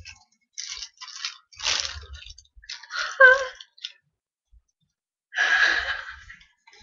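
A woman's excited, breathy laughs and gasps, with plastic wrapping crinkling in the first couple of seconds as it comes off a resin doll.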